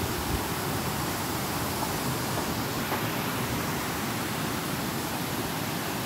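Steady rushing of a rocky woodland creek, its water tumbling white over stones.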